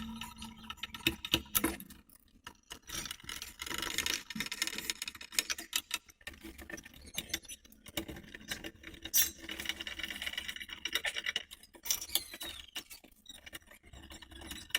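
Handling noise from fitting ceiling fan blades onto the fan body: screws and metal parts clinking, with scattered light clicks and short scrapes at uneven intervals.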